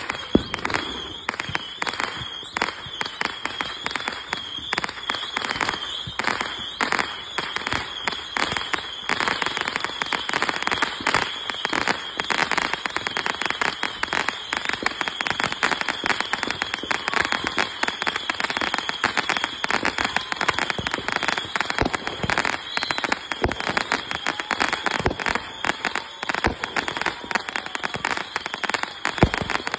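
Fireworks finale barrage: continuous rapid popping and crackling from many shots going off at once, with one sharper bang just after the start.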